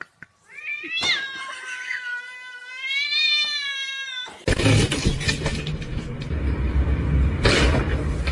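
A cat's long, drawn-out yowl lasting about three and a half seconds, rising at the start and then wavering in pitch. It is cut off by a sudden loud jumble of noise from about four and a half seconds on.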